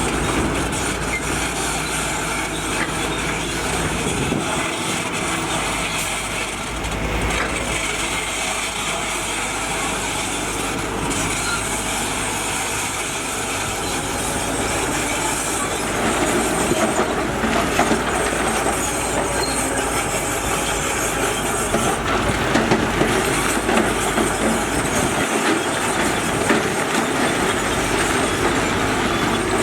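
Heavy earthmoving machinery at work: diesel engines running steadily with a rattling, clanking mechanical din, a little louder from about halfway through.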